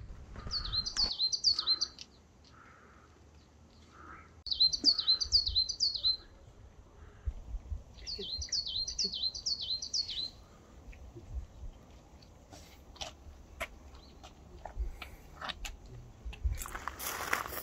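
A songbird singing three short phrases a few seconds apart, each a quick run of high, down-slurred notes. Faint clicks follow, and a brief rush of noise comes right at the end.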